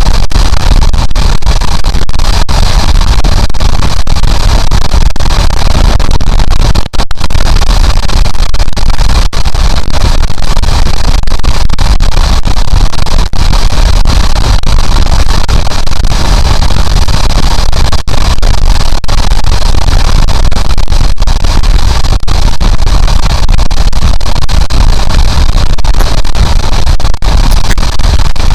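Honda CB750 motorcycle riding at highway speed: loud, distorted wind noise on the camera microphone covers the bike's running, with a few brief dropouts.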